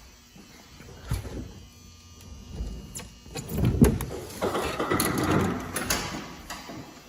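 Heavy tilt hood of a 2003 Freightliner Classic hauled open by hand, hard to lift without its assist spring: a knock about a second in, loud clunks building to a peak near the middle, then a long scraping rush as the hood swings over, fading near the end.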